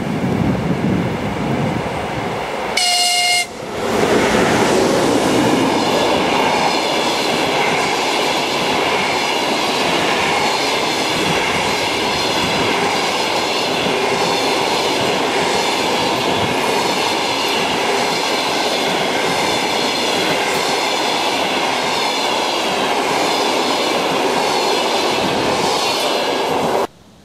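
EP20 electric locomotive with a passenger train approaching, giving one short horn blast about three seconds in. Then the passenger coaches roll past close by with a steady loud rush and the clatter of wheels over rail joints, which cuts off suddenly near the end.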